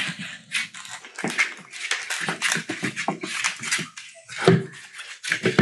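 Young collie puppies scuffling and playing on a hard floor: a quick, irregular run of scratches, clicks and rustles from claws and toys, with a louder thump about four and a half seconds in.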